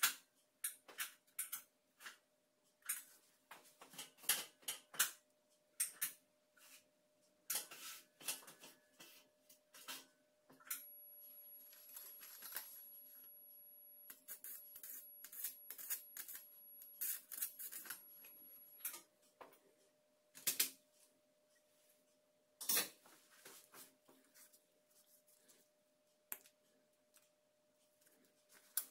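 Steel surgical instruments clicking and clinking: hemostats, forceps and their ratchets. Through a stretch of about eight seconds in the middle, the electrosurgical unit is keyed to coagulate small blood vessels, giving a steady hiss with a thin high whine and crackles.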